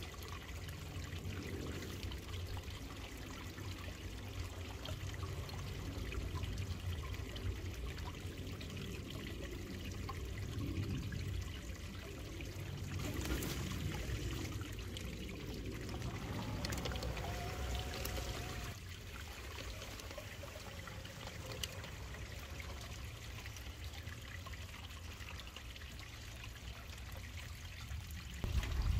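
Water trickling steadily, with a G-scale model locomotive's motor and wheels running along the garden track. The train is louder for a few seconds near the middle as it passes close.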